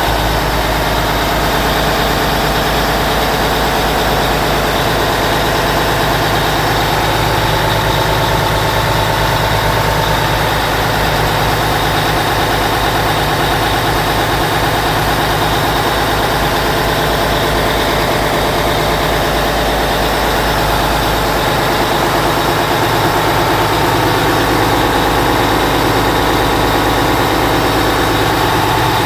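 A fishing boat's inboard engine running steadily at idle, heard loud and close inside the engine room, with no change in speed.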